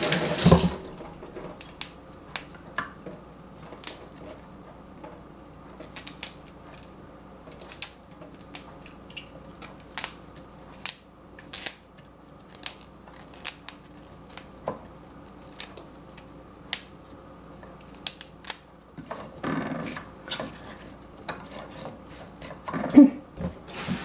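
Broccoli florets being set one by one into a glass baking dish of carrot and celery sticks: a string of light taps and clicks, about one or two a second. A kitchen tap runs briefly at the very start and again in the last few seconds.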